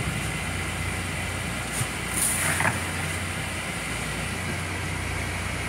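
Steady low hum of an idling engine or machinery, with a brief clatter about two seconds in.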